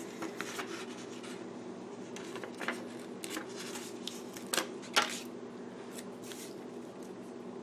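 Faint rustling with a few light taps and clicks as paper and sticker sheets are handled; the two sharpest clicks come about four and a half and five seconds in. A steady low hum runs underneath.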